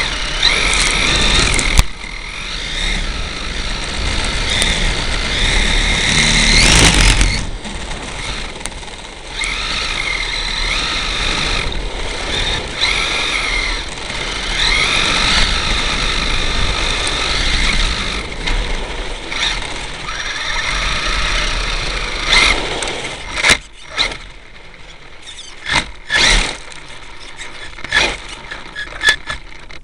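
Electric RC truck's motor whining, rising and falling in pitch with the throttle, over the rumble and rattle of the chassis bouncing across the ground; the rattling comes from a broken front wheel hub. In the last few seconds the driving sound drops away, leaving sharp clicks and knocks.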